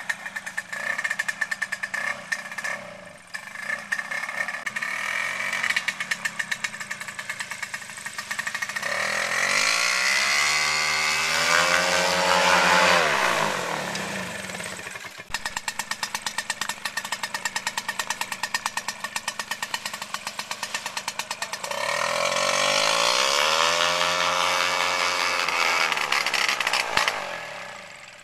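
MZ250 two-stroke single-cylinder paramotor engine running with a fast, even firing beat. It is revved up and eased back down twice, about nine seconds in and again about twenty-two seconds in.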